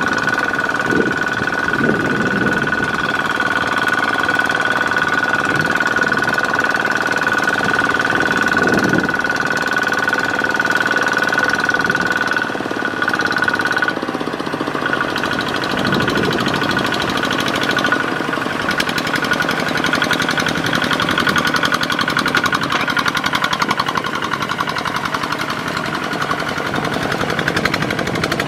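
Kubota RT140 walking tractor's single-cylinder diesel engine running hard under load with a rapid knocking beat as its cage wheels drive through a flooded paddy. A steady high whine sits over it for the first half and stops about halfway through.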